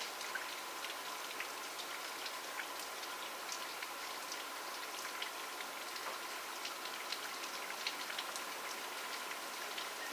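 Steady rain falling, a constant hiss with many individual drops ticking sharply on a surface at irregular moments. A faint steady hum sits underneath.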